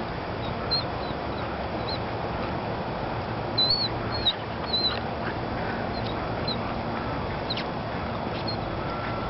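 Terrier puppy whimpering in short, high, wavering squeaks, loudest in a cluster in the middle, over steady background noise.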